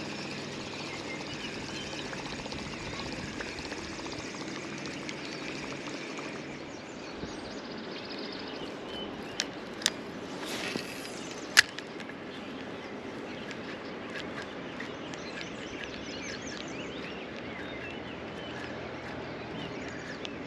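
Steady rush of river water with birds calling. A few sharp clicks and a brief swish come a little before the middle, in keeping with an angler casting and working a spinning reel.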